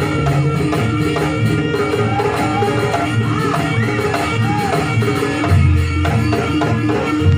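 Live Javanese folk music for a kucingan dance: drums beating a steady rhythm under held gong-like tones, with a wavering melody line over it.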